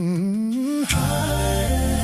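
Wordless sung vocal with a wide vibrato, rising in pitch and breaking off about a second in, followed by steady held accompaniment tones.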